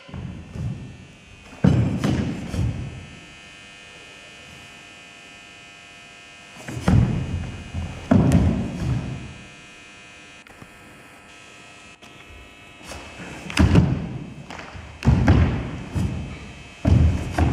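Bare feet thumping and stamping on a wooden gym floor as karate kata steps, kicks and landings are made, in several clusters of heavy thuds with quieter pauses between.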